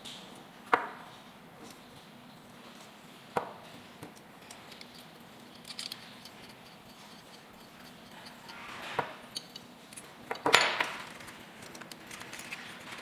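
Unboxing handling noises: a few sharp clicks and taps of a razor and its packaging being handled, the loudest about a second in, with a short cluster of clicks and rustling near the end.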